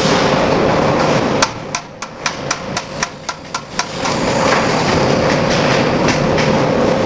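Steady industrial machinery noise with a constant hum. About a second and a half in, the machine noise drops away and a run of about ten sharp knocks follows, roughly four a second. The steady running returns about four seconds in.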